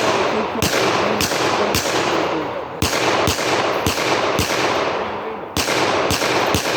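Gunfire at a shooting range: a quick, irregular string of shots, about two a second, each cracking and trailing off in a long echo.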